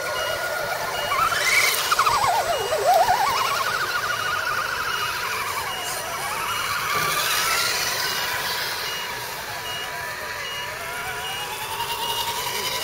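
Electric motors and geared drivetrains of RC scale 4x4 crawler trucks whining as they drive through water, the pitch rising and falling with the throttle, loudest in the first few seconds. A faint high beep repeats about every half second in the background.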